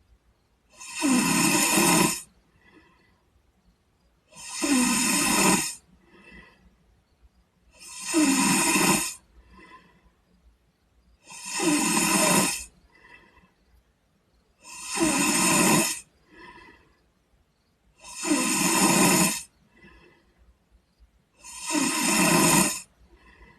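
A sleeping boy snoring steadily: seven loud snores about every three and a half seconds, each lasting over a second, with a much fainter sound after each.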